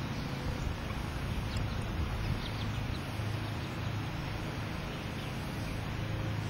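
Steady low outdoor rumble and hum, with a few faint, short high chirps in the first couple of seconds.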